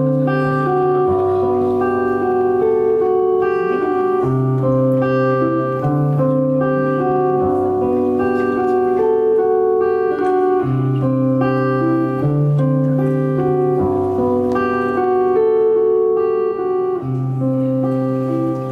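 Solo acoustic guitar playing an instrumental passage: a repeating chord progression, its bass note changing every couple of seconds.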